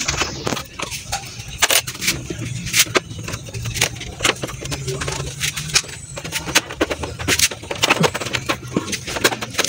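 Scattered clicks and knocks of a screwdriver and the motorcycle's plastic body panels being unscrewed and handled, over a low steady rumble that weakens about six seconds in.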